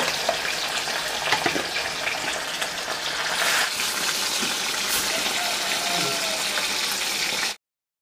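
Katla fish pieces frying in hot oil in an iron kadai: a steady sizzle with sharp crackles and pops throughout, cutting off suddenly near the end.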